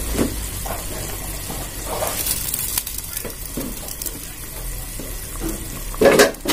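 Pot of vegetable soup boiling hard on a gas stove, water bubbling steadily around spinach, long beans and carrots, with small ticks and pops; a louder knock near the end.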